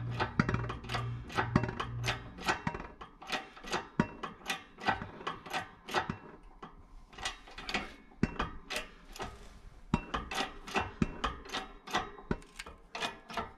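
Shop press pressing a bearing onto a transmission input shaft: a steady run of sharp metallic clicks and knocks, about two or three a second.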